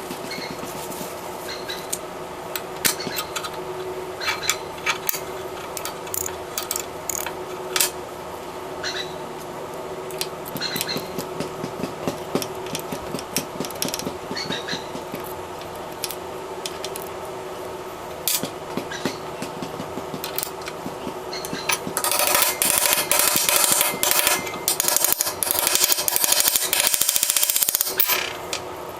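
Small metal clicks and taps of ratchet parts being handled and fitted, over a steady background hum. About two-thirds of the way in comes several seconds of fast, loud clicking: the reassembled 1952 Snap-on 1/2-inch drive ratchet's pawl running over its gear teeth as the handle is worked.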